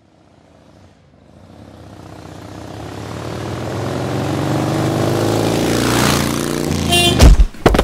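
Sport motorcycle engine approaching, growing steadily louder from nothing as the bike rides up and passes close by. Near the end come two sharp, loud thumps.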